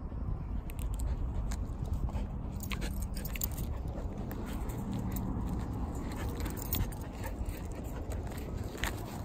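A border collie being walked on a leash on pavement: scattered light clicks and jingles over a steady low rumble.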